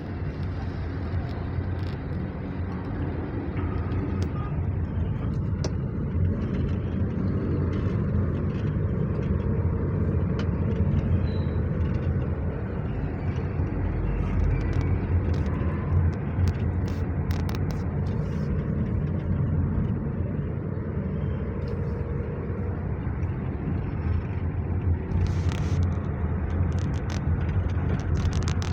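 Honda BR-V being driven on a road test: steady engine and road rumble, with a few short clicks near the end.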